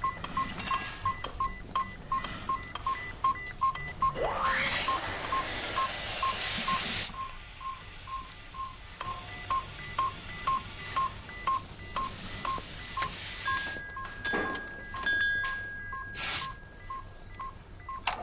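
Short electronic beep repeating evenly about two and a half times a second, with a rising whoosh about four seconds in, stretches of hiss, and a steady higher tone held near the end.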